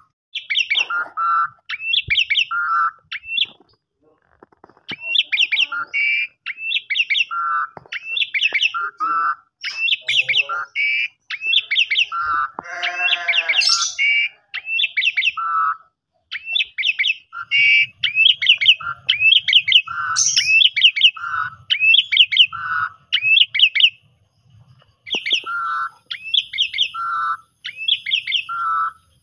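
Asian pied starling (jalak suren) singing its 'kopi-kopiko' song: short phrases of quick high chirps, each ending on a lower note, repeated over and over with brief pauses. About halfway through it gives one harsh, buzzy call.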